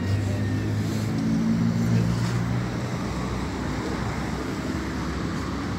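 Street traffic: a vehicle engine hums over steady road noise for about the first three seconds, then fades, leaving the traffic hum.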